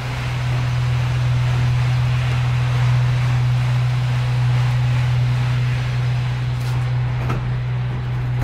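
A steady low machine hum with a hiss above it, unchanging throughout, and two light clicks near the end.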